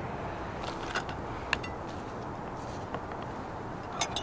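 Hands handling a raw plucked bird on a plate at a wooden table: a few short, soft clicks and taps, the sharpest about a second and a half in and a pair near the end, over a steady background hiss.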